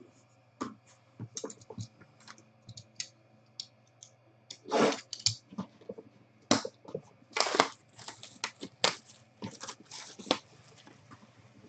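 Clear plastic shrink wrap being torn and peeled off a cardboard trading-card box: scattered crinkles and crackles, with louder tearing rips about five and seven and a half seconds in.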